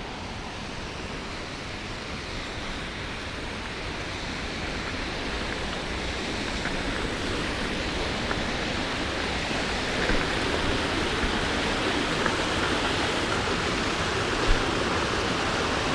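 Cascading creek water rushing steadily, growing gradually louder.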